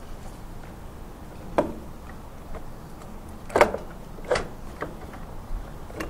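Four short knocks and clacks of metal, the loudest about three and a half seconds in, as a six-piston Tokico brake caliper is worked off the motorcycle's brake disc.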